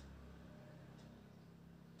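Near silence: room tone with a low hum and a faint tick about once a second.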